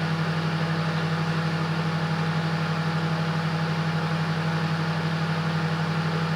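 Silvercrest SMWC 700 D1 microwave oven running a short 10-second timed cycle: a steady low electrical hum with a faint fast flutter.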